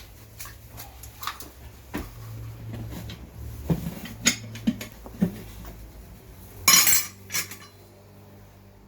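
Metal tools clinking and knocking during scooter tyre work, over the steady low hum of a workshop air compressor. About seven seconds in, a short loud burst of hiss, and the compressor's hum stops.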